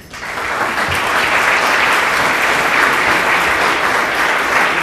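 Audience applauding: many hands clapping in a steady, dense patter that starts suddenly and keeps going.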